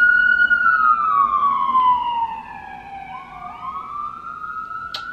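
Police car siren wailing: one slow fall in pitch over about three seconds, then a new rise near the end, growing fainter about halfway through.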